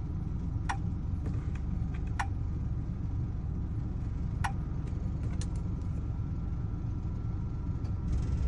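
Steady low rumble of an idling vehicle engine, with three sharp metallic clicks spread through it.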